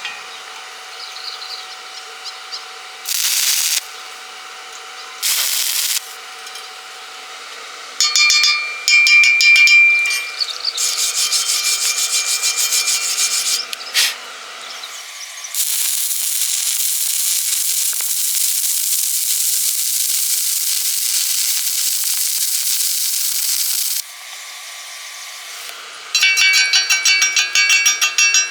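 Metalworking sounds: several short bursts of abrasive rubbing on metal, a steady hiss lasting about eight seconds from around the middle, and a rapid, ringing, rhythmic scraping near the end.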